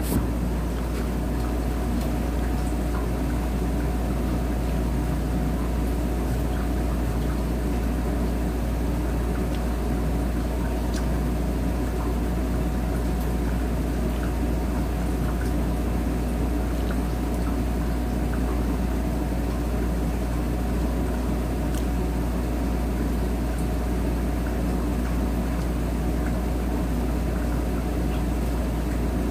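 Steady low rumbling hum that does not change, with a few faint ticks over it.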